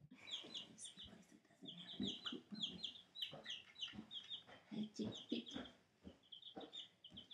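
A group of young chicks peeping over and over in short high peeps, several at once, over soft low knocks and shuffling.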